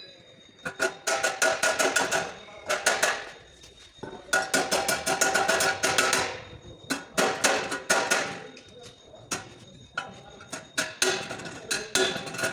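Hammer striking sheet-metal body panels in rapid runs of ringing blows, several a second, with short pauses between the runs: panel beating to straighten a damaged front end.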